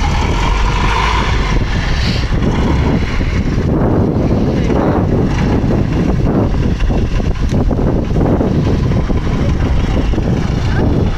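OT-64 SKOT 8x8 fire truck's V8 diesel engine running steadily under load as the heavy vehicle crawls off-road over sand mounds, with a deep rumble.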